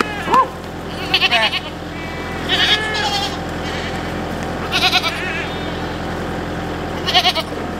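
Goats bleating about four times, short high wavering cries spaced a couple of seconds apart, over the steady low hum of an idling tractor.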